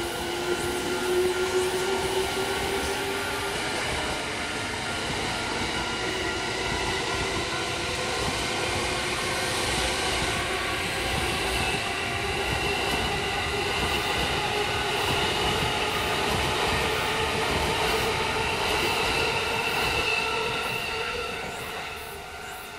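An E217 series electric train passing close by, with dense rail and wheel noise and a motor whine that slowly rises in pitch. The sound fades over the last couple of seconds.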